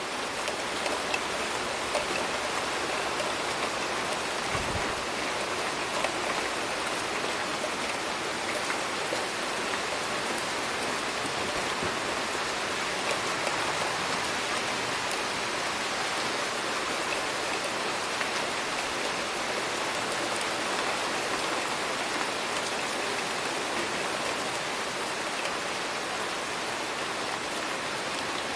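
Steady rainfall: an even hiss of rain with scattered sharp drop ticks, holding at a constant level.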